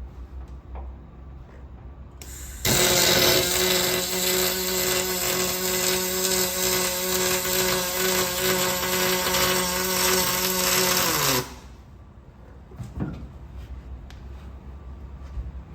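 Aluminium welding arc burning for about nine seconds: a loud, steady buzz with a hiss. It starts abruptly, dips slightly in pitch just before it stops, and then cuts off.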